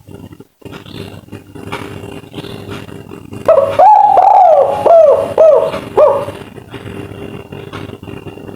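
Spotted dove (tekukur) cooing in its 'kuk 3' pattern: after about three and a half seconds, a longer held coo followed by several short down-curving coos, then it stops about six seconds in. A faint steady hum runs underneath.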